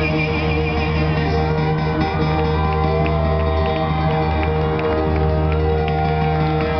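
Live concert music played through the stage sound system, a piano-led song with held chords, recorded from among the audience, with shouts and cheers from the crowd.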